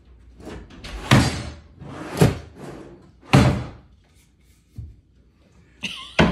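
Heavy thuds of laminate desk panels being knocked about, three loud ones roughly a second apart, then a few lighter knocks near the end.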